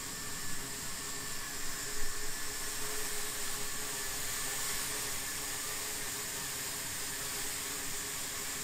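DJI Mini 2 quadcopter hovering on 8-bladed propellers mounted on 3D-printed adapters: a steady propeller hum with a few held tones over an even hiss.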